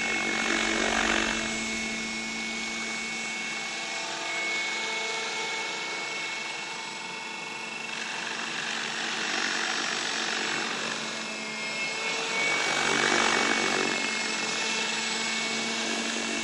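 Align T-Rex 700L Dominator electric RC helicopter in flight: a steady rotor and motor hum with a high whine. It swells louder about a second in, around ten seconds in and again around thirteen seconds in.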